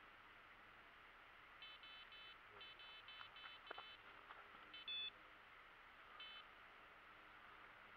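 Electronic carp bite alarm sounding in irregular runs of short, high beeps, with one louder, longer beep near the middle. It is signalling a drop-back bite: a bream has picked up the bait and the line is going slack.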